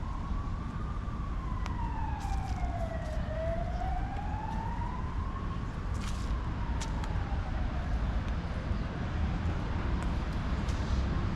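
Emergency vehicle siren wailing, its pitch rising and falling slowly about twice, fading in the second half, over a steady low rumble.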